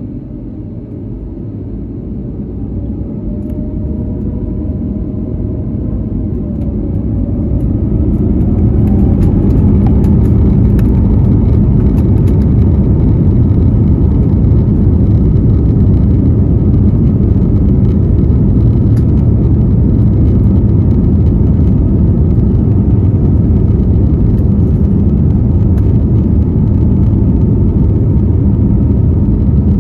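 Airbus A321neo's two Pratt & Whitney PW1133G geared turbofans spooling up to takeoff thrust, heard from inside the cabin. For the first eight seconds or so the engine tone rises in pitch and the sound grows steadily louder. It then settles into a steady loud rumble of engines and wheels as the jet accelerates down the runway.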